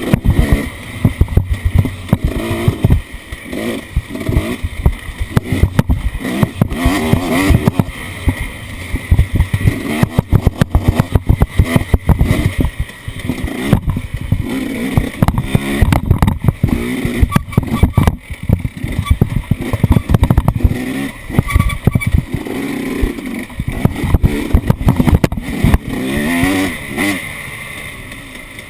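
Off-road vehicle engine revving up and down as it is driven over rough ground, with frequent knocks and rattles from the jolting.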